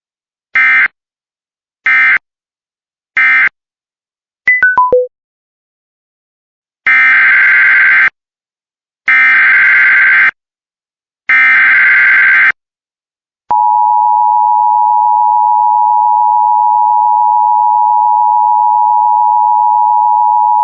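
Emergency Alert System tones. Three short SAME data bursts close the previous alert. A quick four-note falling beep follows, then three longer, buzzing SAME header bursts of about a second each. The steady two-tone EAS attention signal starts about halfway through.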